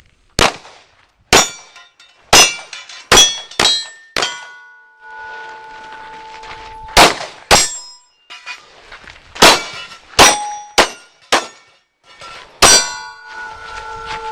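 A string of about a dozen pistol shots at steel targets, each hit clanging off the metal. Twice a plate rings on for a second or two after being struck.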